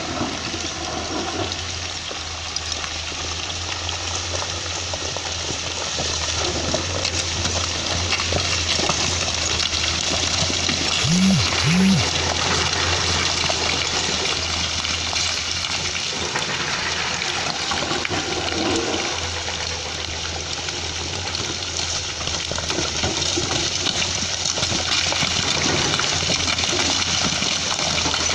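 A steady rushing noise with a steady low hum beneath it, the hum typical of an excavator's diesel engine running. Two short blips come near the middle.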